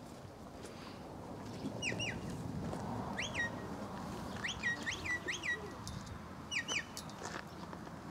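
A sheepdog handler's whistled commands to a working border collie: short, sharp whistle notes, most falling in pitch, given in pairs and in a quick run of three, repeated several times.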